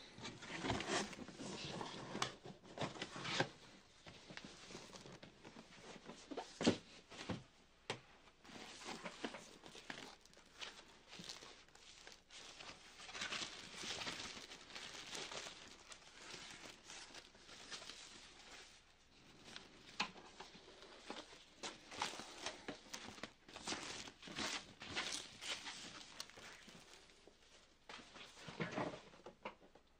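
Cardboard packaging and a plastic bag being handled while a monitor is unpacked: irregular rustling, crinkling and scraping, with a few sharp knocks.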